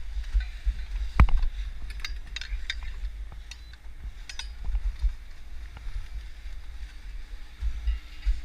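Wind buffeting the microphone as a fluctuating low rumble, with a few scattered sharp clicks and knocks.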